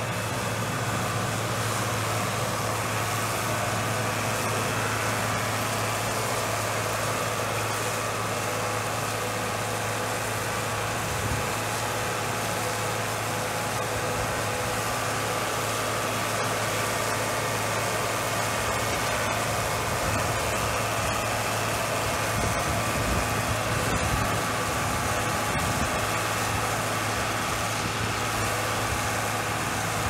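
John Deere 4040 tractor's six-cylinder diesel engine running steadily as it pulls a New Holland 640 round baler that is picking up and baling a hay windrow.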